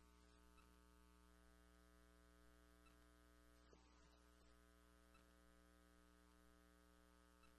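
Near silence with a steady electrical mains hum; a faint brief rustle about four seconds in.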